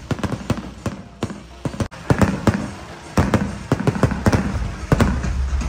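Fireworks going off in quick, irregular succession: many sharp cracks and pops, coming thicker and louder from about two seconds in.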